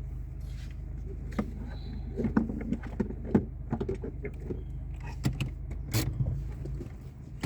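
Car running slowly, heard from inside the cabin: a steady low engine hum with scattered short clicks and knocks.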